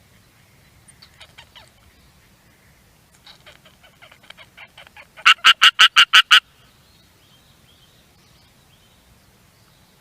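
Japanese tree frog calling in runs of rapid, harsh pulses. A faint short run comes about a second in, a longer run builds from about three seconds, and the call peaks in about ten loud pulses at roughly nine a second, around five to six seconds in.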